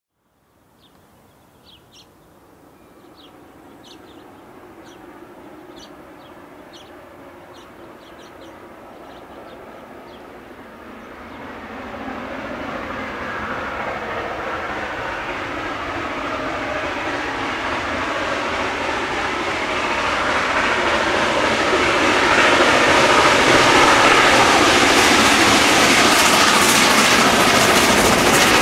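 Chinese QJ-class 2-10-2 steam locomotive approaching, its sound growing steadily louder from faint to loud as it draws near. A few short high chirps come in the first several seconds.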